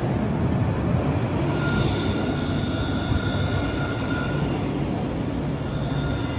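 Tram running by with a steady rumble, and a thin high squeal from its wheels from about a second and a half in until about four and a half seconds.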